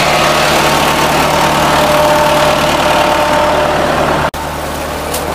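Steady engine drone driving the tubewell pump, with water rushing from the outlet pipe into the concrete tank. The sound drops out for an instant about four seconds in.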